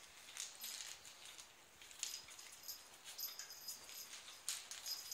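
Italian greyhound puppy's claws and paws clicking and scuffing irregularly on a tile floor as it plays tug with a rope toy.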